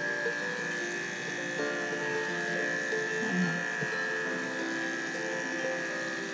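Andis AGC Super 2-Speed electric pet clipper running with a steady high whine while shaving a goldendoodle's front-leg fur, over background music.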